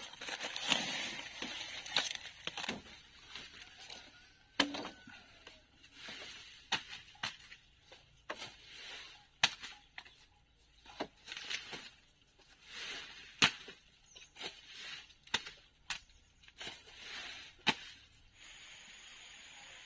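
Irregular sharp chopping strikes of a blade, about one a second, with rustling and tearing between them. Near the end the strikes stop and a steady hiss takes over.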